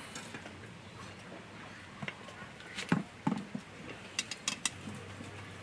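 A covered aluminium cooking pot set down onto a metal grate over a wood fire, clunking a couple of times, then a quick run of about five light, sharp clicks.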